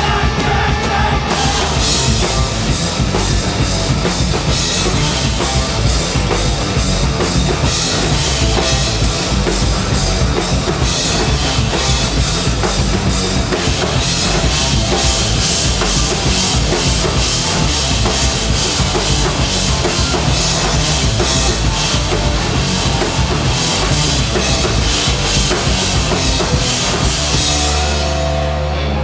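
Live rock band playing loud and without vocals: a drum kit with pounding bass drum and crashing cymbals, electric bass and electric guitar. The cymbals come in about a second and a half in and drop away near the end.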